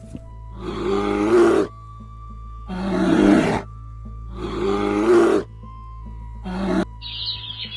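Lion roaring: four roars about two seconds apart, the last one short, over soft background music.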